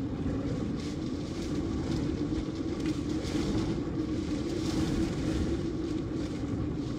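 Hurricane wind gusting and heavy rain beating on a car, heard from inside the cabin over the car's engine idling as a low, steady hum.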